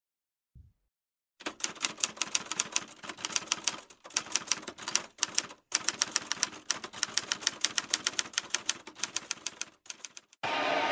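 Typewriter typing sound effect: rapid, sharp key clacks, several a second. They start about a second and a half in, break off briefly a few times, and stop just before the end.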